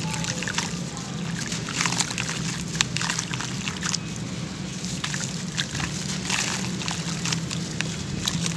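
Bare hands crumbling dry sand-cement chunks: many gritty crackles as the pieces break, with crumbs trickling and pattering into a bowl of water.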